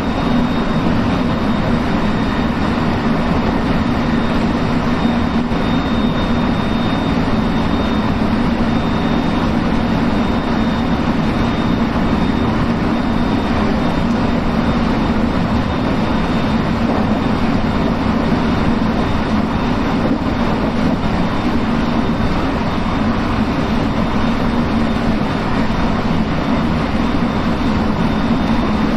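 A JR West 223 series electric multiple unit running steadily at speed, heard from inside behind the driver's cab: a continuous rumble of wheels on rails with a faint high tone over it.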